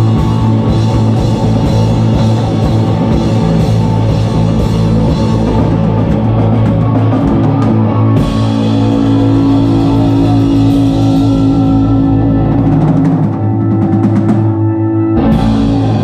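Live rock band playing loud: distorted electric guitar, bass guitar and drum kit. From about halfway through the band holds long chords, and there is a last sudden hit near the end.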